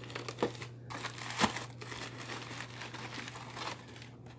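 Crinkling and rustling of packing paper as comic books are handled and lifted out of a shipping box, with two sharp knocks, the louder one about a second and a half in, over a low steady hum.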